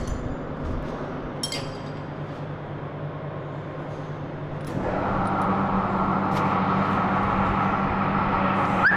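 Lathe running with a steady hum. About five seconds in it grows louder and a steady whine joins in. A light metallic clink about one and a half seconds in.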